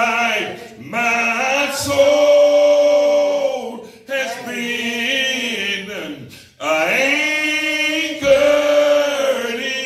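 A man singing a slow gospel song, holding long drawn-out notes with vibrato in four long phrases.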